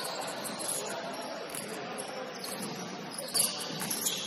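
Basketball shoes squeaking on a hardwood gym court in short, high chirps during play, with the loudest squeak a little past three seconds in, over the general noise of the gym.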